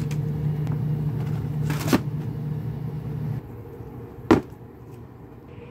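Cardboard shoebox and tissue paper being handled: a short knock about two seconds in and a sharp tap a little after four seconds, the loudest sound. Under them runs a steady low hum that drops off a little past three seconds.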